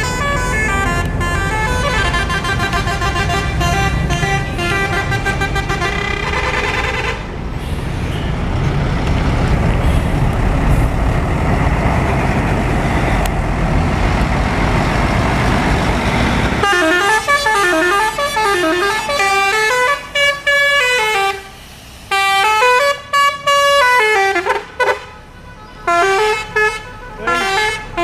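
Indonesian 'telolet' bus horns, multi-tone melodic horns on two coach buses, playing long tunes. For several seconds in the middle a loud rushing noise covers them. After that the horns play a clear swooping melody in short phrases with brief pauses.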